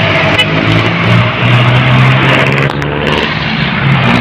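Busy road traffic: vehicle engines running loudly beside the microphone, their pitch shifting as they speed up and slow down.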